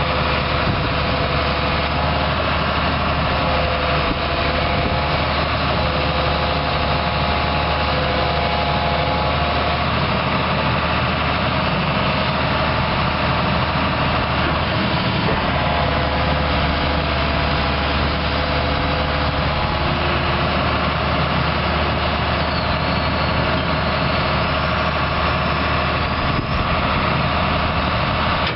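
The 6.8-litre six-cylinder diesel engine of a 2001 John Deere 270 LC excavator running steadily.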